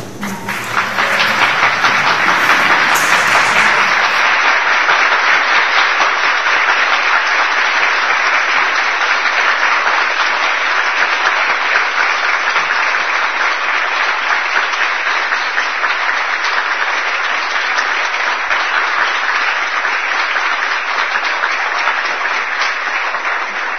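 A church congregation applauding, a long steady round of clapping that swells up in the first second and holds, sounding thinner from about four seconds in.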